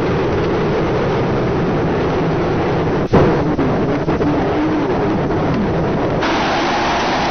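Cars drifting at speed: engines running with tyre noise under a steady rush, with an abrupt cut about three seconds in.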